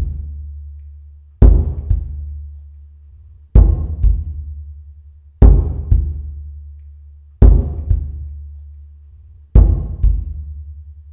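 Slow ritual-sounding music: a deep drum struck in a double beat, a strong hit and a softer one just after, about every two seconds, each pair dying away over a low steady drone.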